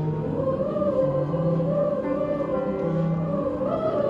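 Slow background music with long held notes: a sustained upper melody over lower notes that change about once a second.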